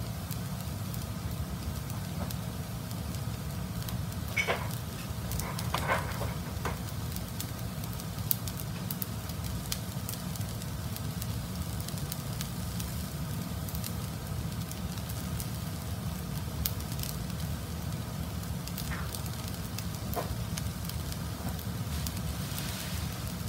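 Fried rice with vegetables and chicken pieces sizzling faintly in a non-stick frying pan over a gas burner, with fine crackling over a steady low rush. A few brief clinks come about five seconds in and again near the end.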